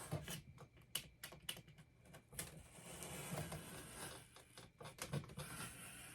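Surgical razor blade cutting through foam board: a quick run of crackling clicks, then a steadier scraping rasp as the blade is drawn along.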